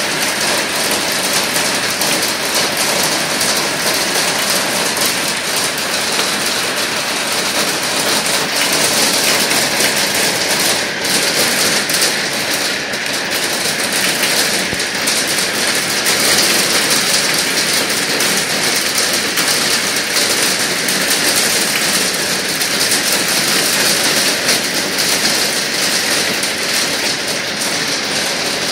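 Heavy hail falling, a dense, steady clatter of countless small hailstone impacts on paving, a patio table and garden beds.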